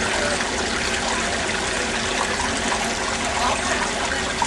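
Water running and trickling steadily through a rock touch pool.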